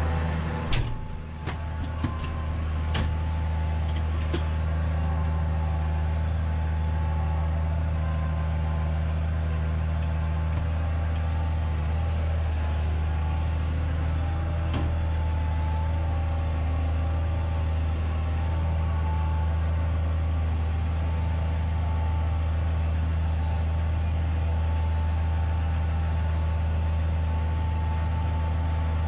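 A machine running with a steady low drone, with a few sharp clicks over it in the first seconds and again about halfway through.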